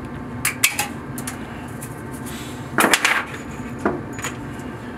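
Tin snips cutting galvanized steel plumber's tape: sharp metallic clicks and clinks, three quick ones early, a louder cluster near the middle, then a couple more.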